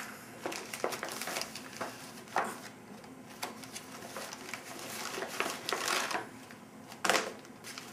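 Thick plastic MRE bag and foil-laminate food packets rustling and crinkling as they are handled and pulled out, with a few sharper clicks and taps among the rustle.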